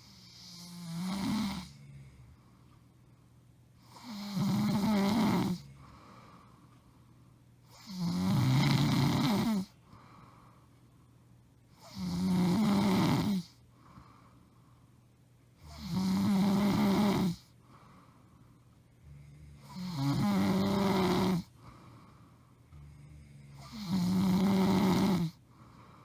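A woman snoring loudly in her sleep: seven rough, rasping snores come at a steady pace of about one every four seconds, each lasting a second and a half or so.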